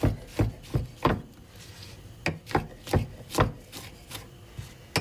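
Kitchen knife slicing wine cap mushrooms on a wooden cutting board: the blade knocks on the board with each cut. There are about a dozen uneven strokes in two runs, with a short pause after the first second or so.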